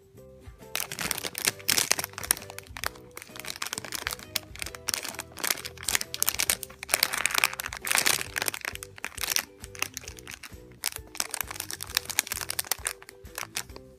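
Clear plastic bags crinkling and crackling as squishy toys are handled inside them, starting about a second in and going on until near the end, over background music.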